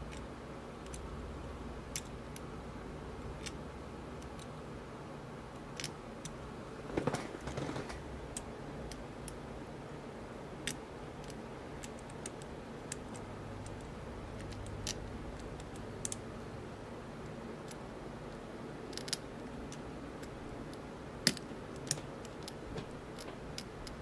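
Small, irregular metallic clicks and ticks of a hook pick working the pins inside an ASSA Abloy Maximum Plus lock cylinder, with a tension wrench held in the keyway. The clicks come every second or two, the sharpest ones near the end, with a brief rustle of handling about seven seconds in, over a faint steady hum.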